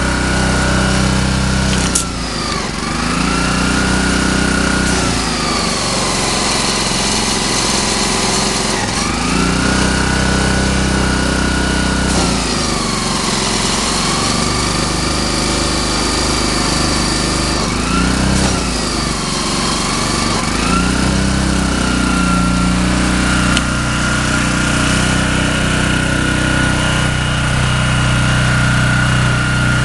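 Honda GX160 single-cylinder engine on a pressure washer running steadily, its speed dipping and picking up again several times.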